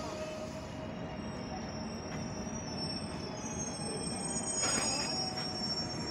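Train running on the rails with a steady rumble, and high, thin wheel squeal setting in about a second in as several shrill tones held together. A short knock comes about five seconds in.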